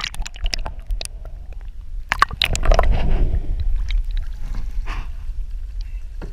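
Water sloshing and splashing as a wire lobster trap is hauled up through the water and out beside the boat's hull, with scattered knocks and clatters; the splashing is loudest a couple of seconds in.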